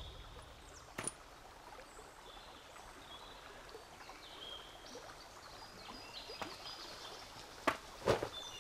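Quiet outdoor ambience: a steady soft hiss with scattered short high chirps, and a few sharp knocks near the end.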